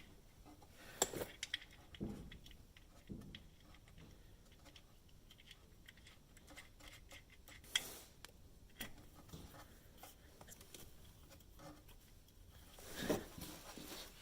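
Faint scattered clicks and light knocks of hand work with tools, likely refitting the drain plug with an Allen wrench, with sharper knocks about a second in, near eight seconds and near thirteen seconds.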